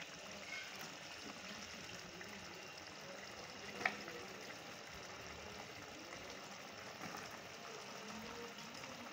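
Tomato and onion masala simmering in a pan, a faint steady bubbling and sizzling, with one light knock about four seconds in.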